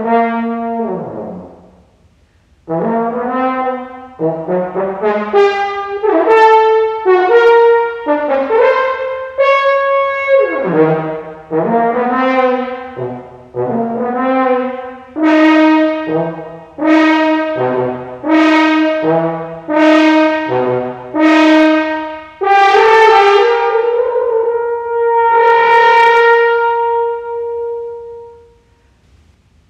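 Unaccompanied French horn playing a solo piece: phrases of separate notes after a brief pause, then a run of short repeated notes, ending on one long held note that fades away.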